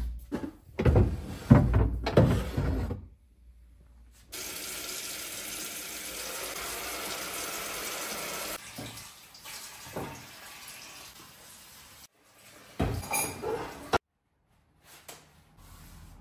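Metal pots and pans clatter and knock as they are taken out of a kitchen cabinet. Then a kitchen tap runs steadily into the sink for about four seconds while a utensil is rinsed under it. A few more clanks of cookware follow near the end.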